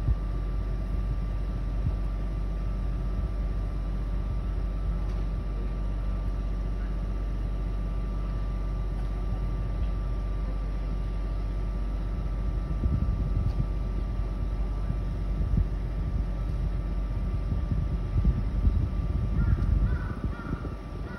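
Construction machinery running with a steady low rumble and a steady high whine, swelling louder in the second half. Crows caw a few times near the end.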